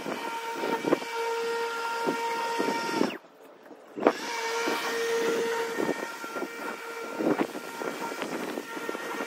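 Walk-behind lawn mower running steadily with a whine and scattered knocks. The sound drops out suddenly for under a second about three seconds in.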